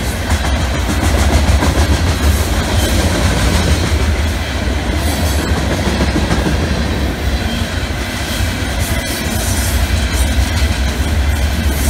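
Freight train of open-top freight cars rolling past close by: a steady low rumble of the wagons, with wheels clicking over rail joints.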